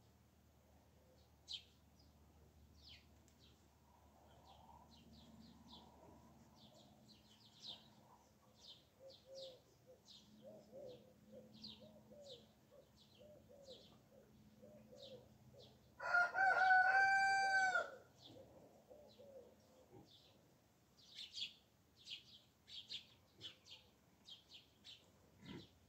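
A rooster crows once, about sixteen seconds in, a loud call of about two seconds that drops slightly in pitch at the end. Small birds chirp throughout, and a run of soft low repeated calls is heard around the middle.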